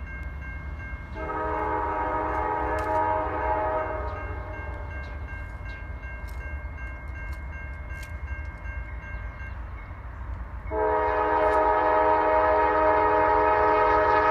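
Norfolk Southern GE Dash 9 locomotive's air horn sounding two long blasts for the grade crossing, the second one louder as the train draws closer, over a grade-crossing warning bell ringing rapidly.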